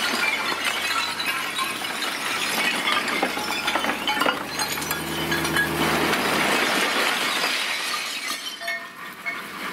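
A load of broken stone slabs and blocks sliding out of a tipping dump truck body, clattering and clinking onto a rubble pile, with the flow of pieces thinning out near the end.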